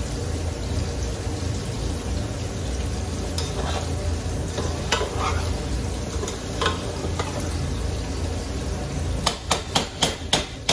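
A large aluminium pot of rice cooking on a gas hob gives a steady sizzling hiss, while a metal slotted spoon stirs it with occasional scrapes and clinks. Near the end the spoon knocks against the pot in a quick run of about seven sharp taps.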